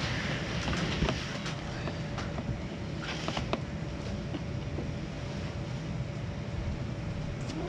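Low, uneven rumble of wind on the microphone with a faint steady hum under it. Rustling and a few soft clicks come from a towel on a cooler lid being smoothed and a lingcod being turned over on it, with rustle bursts near the start and again about three seconds in.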